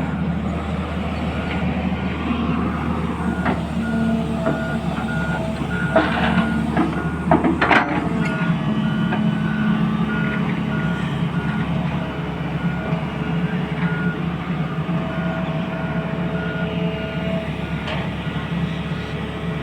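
A vehicle's reversing alarm beeping at one steady pitch, about two beeps a second, over its engine running. A few sharp knocks about six to eight seconds in.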